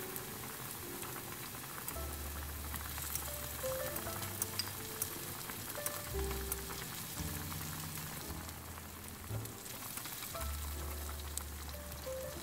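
Minced garlic, green onion and green pepper sizzling in oil in a frying pan, a steady crackling hiss with tiny pops. Soft background music with held low notes plays underneath.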